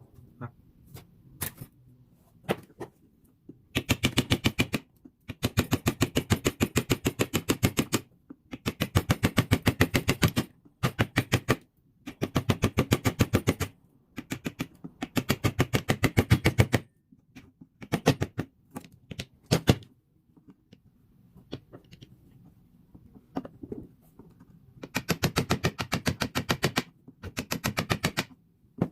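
Rapid, evenly spaced metallic clicking or hammering from a tool at work on the fork repair, about a dozen strokes a second, in bursts of one to three seconds with short pauses and a few single knocks between.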